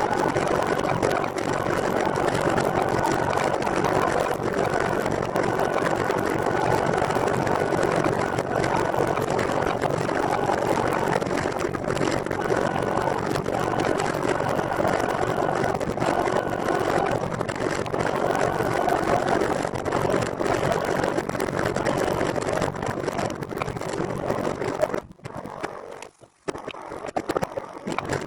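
Steady riding noise from a recumbent trike on the move: wind and road rumble with a faint mechanical whine, dropping away sharply for a couple of seconds near the end.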